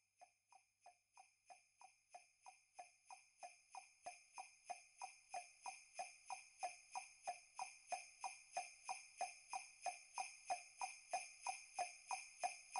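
Sleigh bells shaken in a steady rhythm, about three shakes a second, fading in and growing gradually louder.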